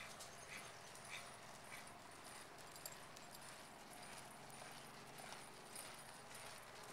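Faint, even hoofbeats of a ridden pinto horse trotting on soft arena dirt, a soft tick about every half second.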